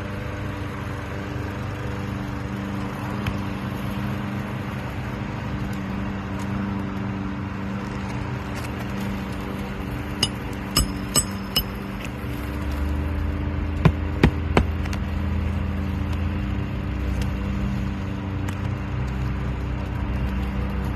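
Hammer striking roofing nails into shingles: four quick blows about ten seconds in, then three more a few seconds later. A steady engine hum runs underneath throughout, growing deeper and louder just before the second set of blows.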